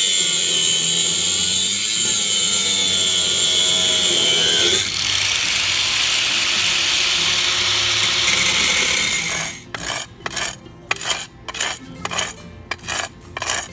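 A power tool cutting, running steadily with a shrill, wavering whine for about nine seconds and dipping briefly about five seconds in. It then gives way to rhythmic strokes, about two a second.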